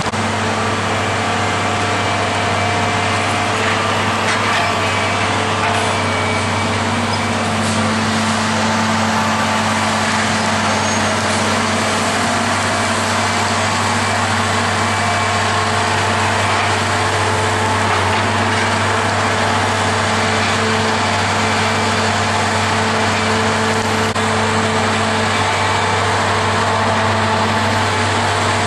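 Log truck's diesel engine running with a steady low drone over a broad rumble of road noise.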